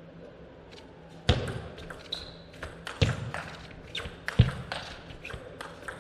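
Table tennis rally: the ball clicking sharply off the rackets and the table in a quick, uneven string of knocks.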